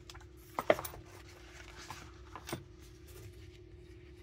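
Packaging being handled as a small cardboard product box is opened and the device lifted out: a few soft taps and clicks, the loudest about two-thirds of a second in and again at about two and a half seconds, over a faint steady hum.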